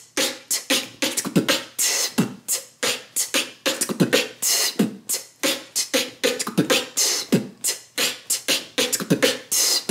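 A woman beatboxing a fast drum-kit pattern: kick-drum 'B' thumps, hissing 'T' hi-hats and 'K' snares, about four to five strokes a second, stopping just before the end.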